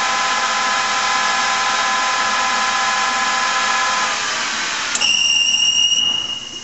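LeBlond toolmaker's lathe headstock running with a steady multi-tone gear whine. The whine dies away about four seconds in when the spindle is shut off. About five seconds in a click brings a loud, high-pitched squeal for about a second and a half as the lathe's electric brake stops the spindle.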